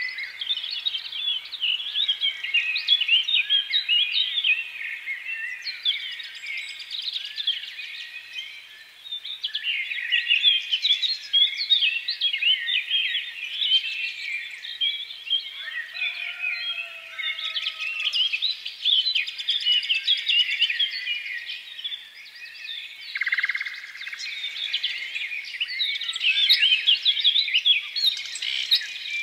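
Many small birds chirping: a dense chatter of quick, high, overlapping chirps that carries on throughout, easing briefly a few times.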